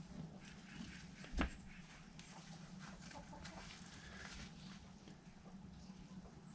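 Chickens clucking faintly, over a low steady hum, with two sharp clicks: one about a second and a half in and one near the end.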